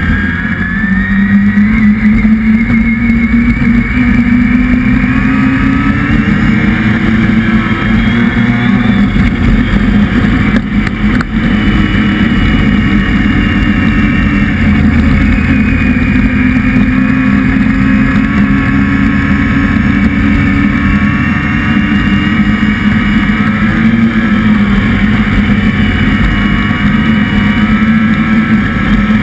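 Motor vehicle engine running loudly and steadily under way, its pitch slowly rising and easing as the revs change, over continuous noise.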